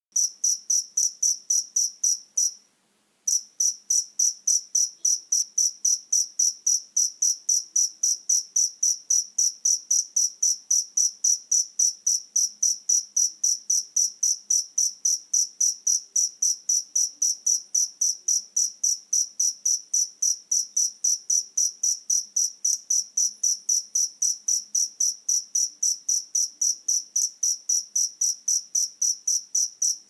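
A cricket chirping in a steady, high-pitched rhythm of about three chirps a second. The chirping breaks off for under a second about two and a half seconds in, then resumes.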